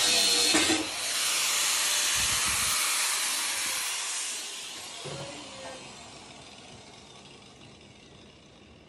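Angle grinder with a cut-off disc cutting into a scuba tank, giving a loud hiss with a brief dip about a second in. From about four seconds in, the sound fades away steadily as the grinder winds down.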